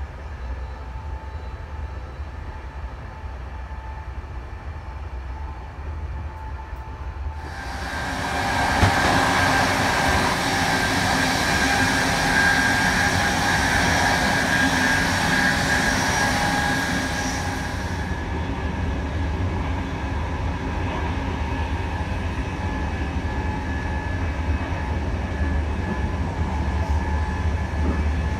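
Running noise of an ÖBB Nightjet train heard from inside its cars: a steady low rumble. From about eight seconds in to about eighteen it swells into a loud hiss at the car-end door, then settles back to the rumble.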